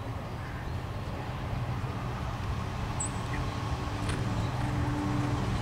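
A motor engine running steadily as a low rumble, with a steady higher hum joining in about four and a half seconds in.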